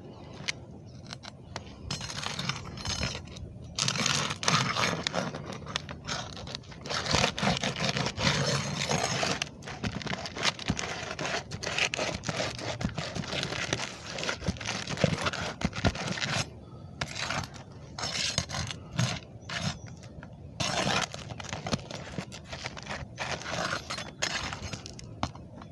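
Irregular scraping and crackling as material is pried, pulled and worked by hand, in uneven bursts with short pauses.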